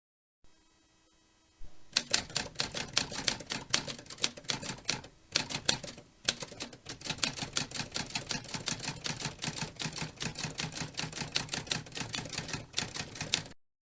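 Rapid typing on keys: a dense, irregular run of sharp key clicks that pauses briefly about midway and stops abruptly near the end.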